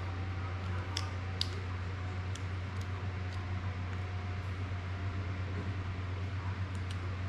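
Steady low hum of room background noise, with a few faint light clicks as a small FPV drone's plastic frame and prop guards are handled.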